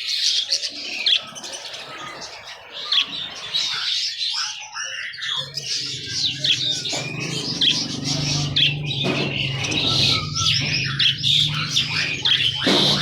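Many small birds chirping and squawking at once, with quick overlapping calls and trills. A steady low hum joins about five seconds in.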